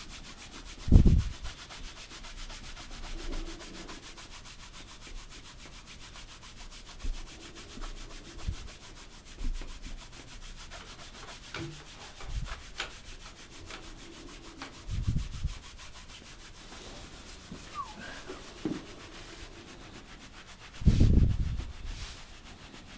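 Soft rubbing and rustling of hands working over a patient's back and clothing on a chiropractic table, with small ticks and three dull low thumps: about a second in, midway, and near the end.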